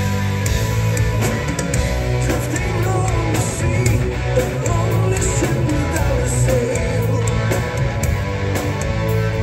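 Progressive metal band playing live: electric guitar and drums at full volume, with a male lead singer's vocals over them.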